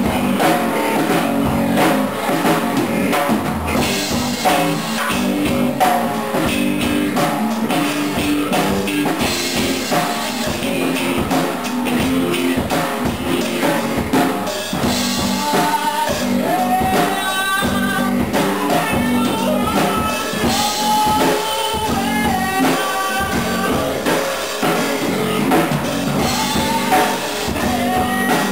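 Live rock jam: an acoustic guitar strummed close by, with a drum kit keeping a steady beat. A higher melody line wavers in over the chords about halfway through.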